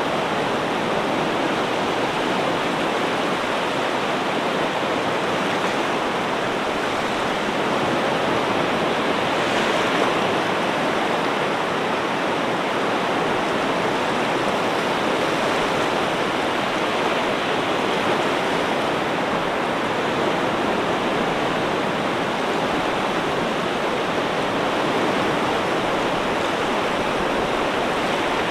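Ocean surf: a steady, unbroken wash of waves, swelling slightly about ten seconds in.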